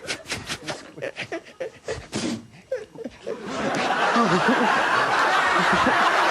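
A rapid series of short mouth-made sound effects spoken into a microphone, about six a second, then from about three and a half seconds in a studio audience laughing loudly.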